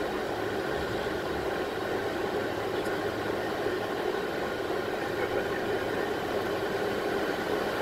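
Steady noise on a Boeing 747 flight deck from its engines running at low taxi thrust, with an even rush of air and a faint low hum and no change in level.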